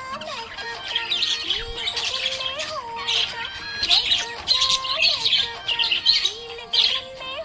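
Budgerigar chirping and warbling in quick, busy bursts throughout, over background music with a gliding melody.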